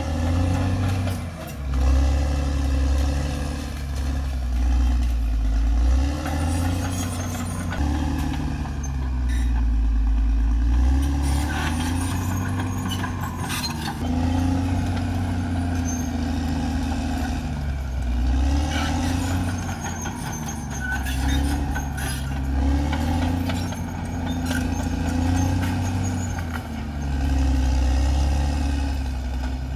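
Caterpillar D6R XL bulldozer's diesel engine working, swelling and easing under changing load every few seconds, with scattered metallic clanks.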